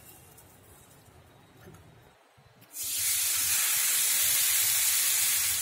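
Melted butter sizzling on a hot tawa: quiet at first, then about three seconds in a sudden loud, steady sizzle as a slice of bread with a wet vegetable-and-cream topping is laid topping-side down into the butter and pressed flat.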